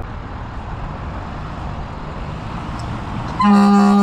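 Steady low traffic rumble. About three and a half seconds in, a vehicle horn sounds one loud, steady, low-pitched blast that runs on past the end.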